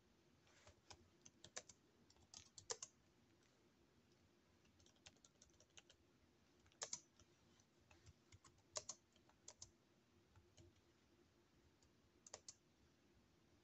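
Typing on a computer keyboard: faint key clicks in short irregular runs of a few keystrokes, with pauses between them.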